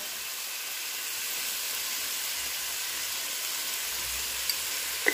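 Small pieces of turkey frying in butter in a pan: a steady sizzle, with a light tick or two near the end.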